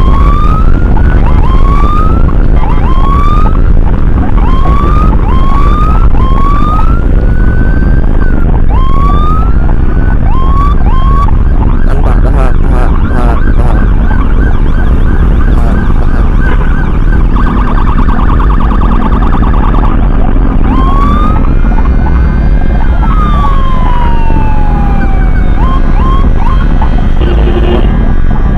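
Emergency vehicle siren on an ambulance escort run: a string of quick rising whoops, one a second or faster, for the first ten seconds or so, a rapid warble a little past halfway, then one long rise and fall. Heavy engine and wind rumble runs underneath.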